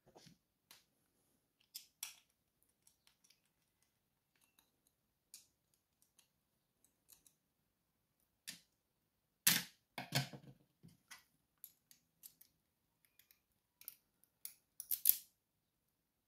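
Scattered small metal clicks and scrapes as a Schlage Primus brass lock cylinder is taken apart with a small screwdriver, with louder clattering about ten seconds in and again about fifteen seconds in.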